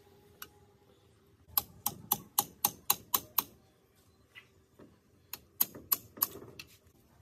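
Ratchet wrench clicking as it works a bolt on a sewing machine's cast frame: two runs of sharp, evenly spaced clicks, about four a second, with a pause between them.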